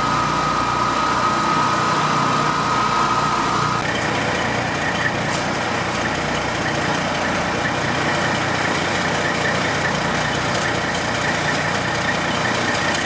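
Fire engine idling steadily, a constant even rumble. A thin high whine over it stops about four seconds in.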